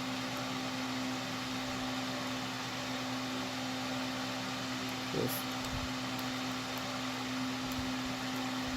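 Electric fan running steadily with a constant low hum, with one faint click about five seconds in.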